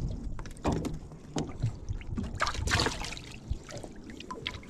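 Irregular knocks, clicks and scuffs of handling on a small fishing boat, over a steady low rumble.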